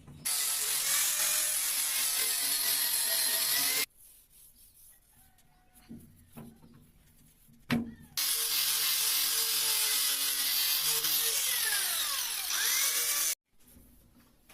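Electric power tool running in two stretches of several seconds each, both starting and stopping abruptly. There is a quieter gap between them with a single sharp click.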